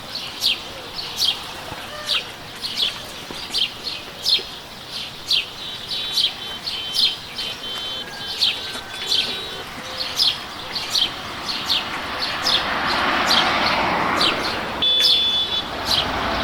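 A small bird calling one sharp, falling chirp over and over, about two a second. Other thin whistled notes come in now and then, and a broad rush of noise swells up in the last few seconds.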